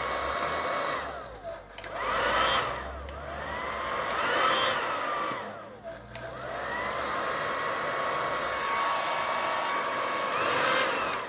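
Handheld hair dryer running steadily, its fan rush and motor whine working normally. It grows louder and fainter several times, with the whine bending up and down in pitch. It dips briefly about one and a half seconds in and again about six seconds in.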